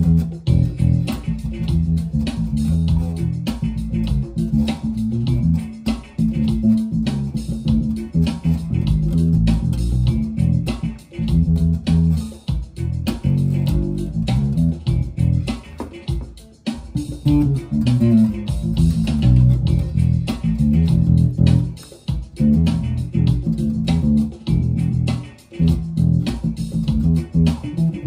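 Electric bass guitar playing a groove: a steady run of low plucked notes in phrases, with a few short breaks between them.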